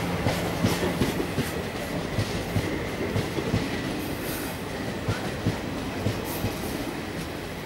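Passenger train coaches rolling slowly past, a steady rumble with the wheels clacking over rail joints, the knocks coming in quick pairs about every second.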